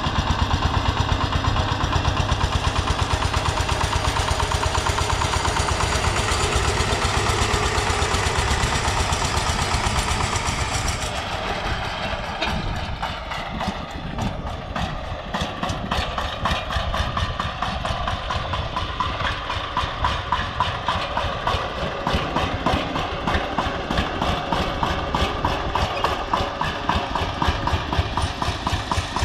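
Engine of a walk-behind power tiller running steadily under load as it pulls a cultivator through the soil. It is louder and brighter for about the first ten seconds, drops back for a few seconds, then settles into an even, steady beat.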